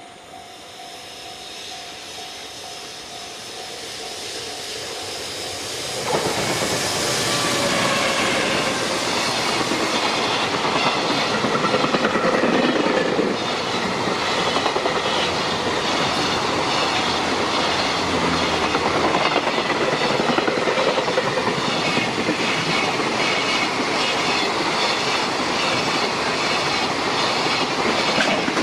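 Container freight train approaching, growing steadily louder, then passing close from about six seconds in. Steady wheel-on-rail noise with a regular clickety-clack of the container wagons' wheels over the rail joints.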